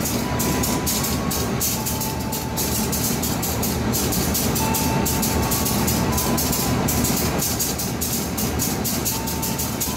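Passenger train running, heard from inside the coach: a steady low rumble with a rapid rattle of wheels on the track.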